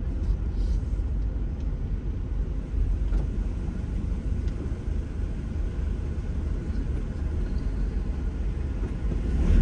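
Nissan NV350 Caravan's 2.5-litre turbodiesel engine running as the van drives slowly onto the ferry's car deck: a steady low rumble, heard from inside the cab.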